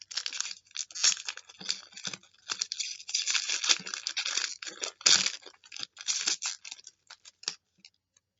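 A 2015 Select AFL Honours trading card pack wrapper being torn open and crinkled by hand, in irregular crackling bursts that thin out near the end.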